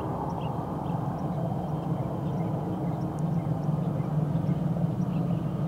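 Distant BNSF freight train led by GE ES44C4 diesel locomotives approaching, heard as a steady low engine rumble that grows a little louder partway through.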